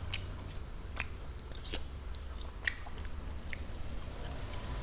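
Close-miked mouth sounds of a person chewing boiled fish and rice: wet smacks and sharp lip clicks every second or so, over a steady low hum.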